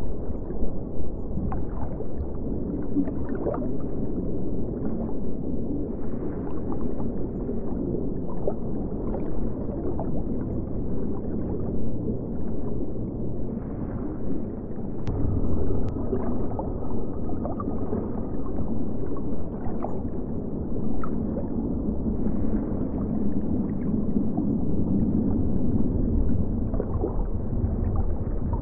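Muffled underwater water sound: a steady low rumble with frequent small bubbling pops and gurgles, and nothing in the higher pitches.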